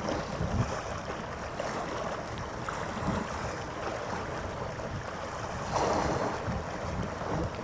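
Wind gusting against the microphone in low, uneven buffets over a steady wash of harbour water, with a brief louder rush about six seconds in.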